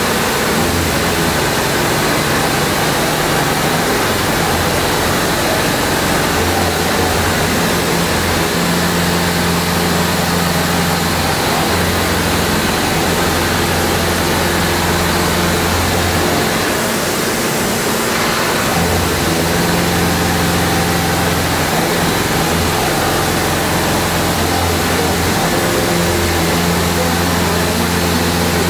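CNC vertical milling machine pocketing a steel block with a milling cutter at 1300 rpm and 0.6 mm depth of cut: a steady hiss of cutting, with a low drone that drops out and returns several times.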